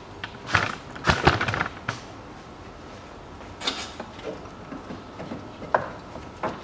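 Scattered knocks and clicks of hands working plastic and metal parts loose around a car radiator, a cluster in the first second or so, then single knocks a few seconds apart.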